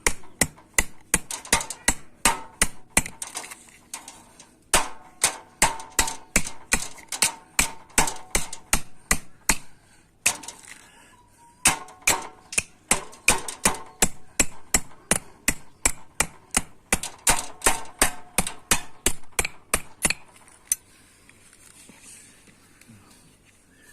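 Hammer striking sheet metal for a hand-made bread-baking griddle pan: steady blows about three a second, each with a brief metallic ring. The blows come in runs with two short pauses and stop about twenty seconds in.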